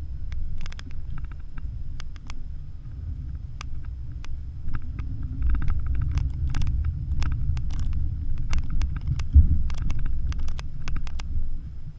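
Porsche Macan driving slowly over a bumpy sandy dirt track, heard inside the cabin: a steady low rumble with frequent irregular clicks and knocks, and one heavier thump about nine seconds in.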